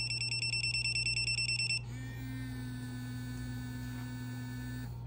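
Small electric dog bark collar set off by a bark: a rapid, high-pitched pulsing beep for almost two seconds, then its vibration motor buzzing steadily for about three seconds before cutting off. The collar is running its warning beep and vibrate mode, not the shock.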